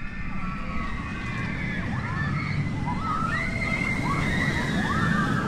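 Steel looping roller coaster train running along its track: a steady low rumble with many overlapping high-pitched screams from the riders rising and falling over it, growing busier about halfway through.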